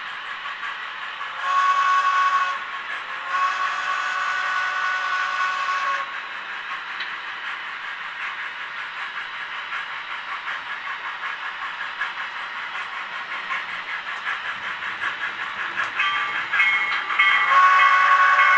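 Sound-equipped model steam locomotive blowing a chime whistle, a short blast then a long one, then running with steady rhythmic chuffing that grows louder as it approaches. Near the end it whistles again, a short blast followed by a long one.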